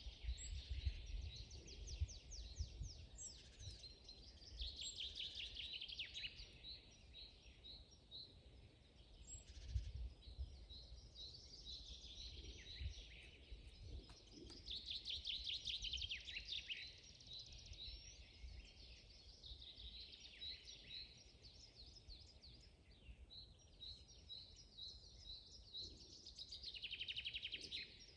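Several forest songbirds singing together: repeated chirps and fast trills, with the loudest trilling bursts coming in three spells. A low rumble lies underneath.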